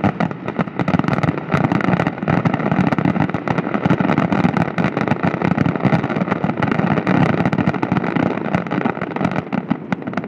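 Fireworks finale barrage: many shells and effects going off in rapid, overlapping volleys of bangs and crackling over a constant rumble, easing off near the end.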